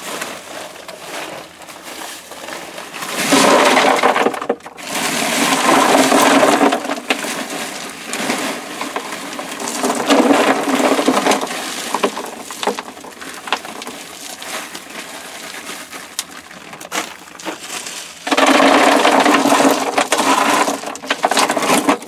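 Drainage-rock gravel poured from a plastic bag, the stones clattering onto the gravel bed and a plastic sump basin in four long pours, with quieter rattling and shifting of stones between them.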